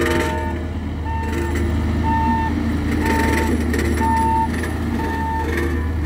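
Hidromek 102B backhoe loader reversing, its back-up alarm beeping about once a second, six half-second beeps, over the steady running of its diesel engine.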